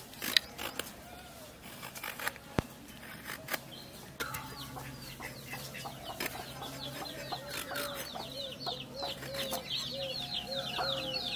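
Chickens clucking in a steady run of short calls, about three a second, with higher calls over them; they start about four seconds in and grow louder and busier toward the end. Before that, a few sharp clicks come from a curved iron blade scraping the skin off a pointed gourd.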